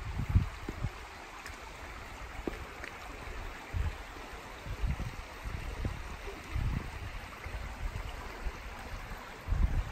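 Shallow stream running steadily over stones, with occasional low thumps.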